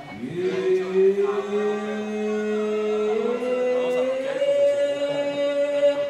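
Voices holding one long sung note, sliding up at the start and then stepping higher twice.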